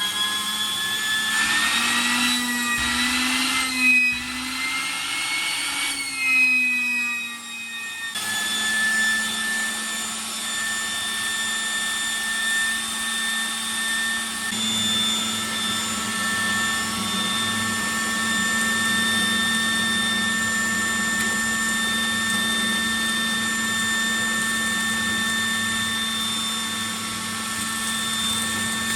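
The motor of a homemade PVC vacuum cleaner running with a whine. Its pitch climbs over the first few seconds, changes about seven seconds in, then holds steady.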